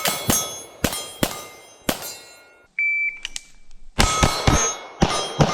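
A rapid string of pistol shots at 12-inch steel targets, each hit followed by the plates ringing. The shots come in two bursts, about four and then about five, with a short high beep about three seconds in.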